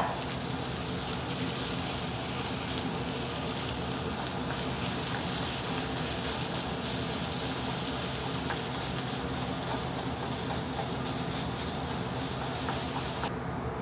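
Ground pork frying in hot oil with onion, ginger and garlic in a skillet over medium-high heat: a steady sizzle, over a faint steady low hum.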